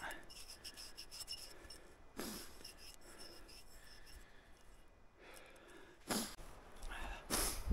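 Fingers rubbing and scraping dirt off a small rusted enamelware plate, faint, with a few short louder rustles about two, six and seven and a half seconds in.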